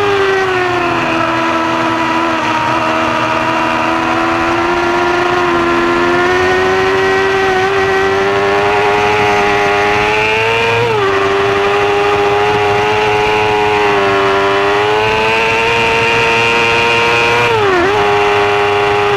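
Yamaha R6 600 cc inline-four engine running steadily at part throttle, heard from on board. Its pitch sags early on, then climbs slowly, with two brief dips in pitch about eleven and eighteen seconds in. Wind rushes over the microphone.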